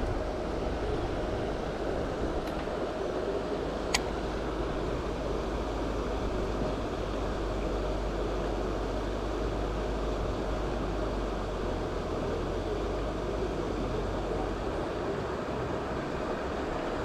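A steady, unchanging mechanical-sounding drone, like machinery running, with a single sharp click about four seconds in.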